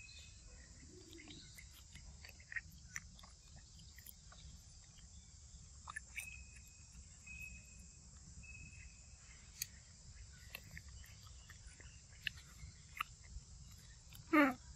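A steady, high insect drone, with faint scattered clicks of a monkey biting and chewing a mango. A few short, high, steady notes sound in the middle, and a short loud call falling in pitch comes near the end.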